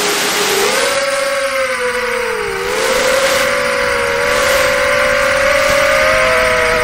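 FPV quadcopter's brushless motors (1603, 2800KV) and propellers whining, the pitch dipping and climbing with the throttle, over a rush of air.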